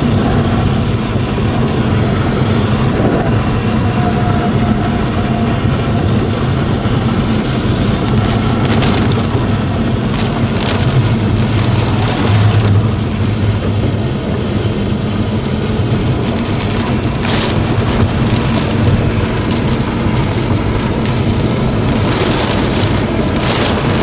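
Steady engine and road noise inside a moving vehicle, heavy in the low end, with a few short louder rushes of noise.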